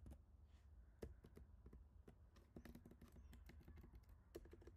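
Faint computer keyboard keystrokes: a few scattered key presses, then quicker ones in the second half.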